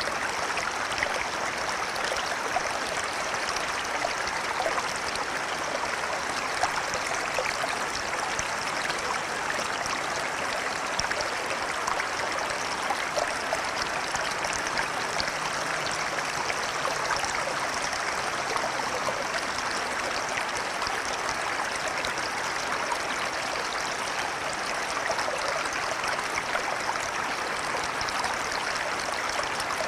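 River water flowing steadily, a constant rushing flecked with small splashes and gurgles.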